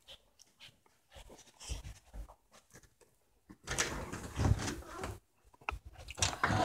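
Handling noise from a hand-held phone being carried: scattered light knocks and clicks, then a longer rustling scrape a little past halfway and another near the end.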